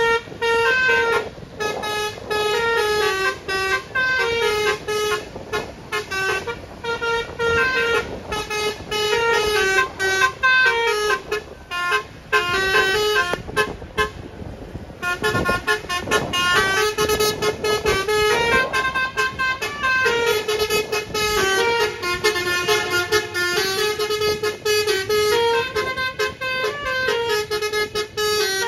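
Basuri telolet horn, a multi-note musical car horn, playing a tune in quick stepped notes with short breaks and a brief pause about halfway.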